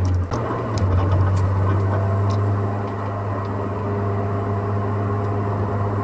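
Mercedes SLK driving, heard from inside the cabin: a steady low engine and road drone, with a few sharp knocks in the first two seconds or so.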